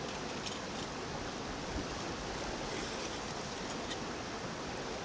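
Steady rushing of flowing spring water.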